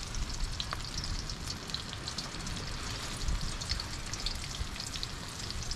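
Hot oil sizzling and crackling steadily as a batch of crumbed coral trout shallow-fries in a wok, with a low rumble beneath.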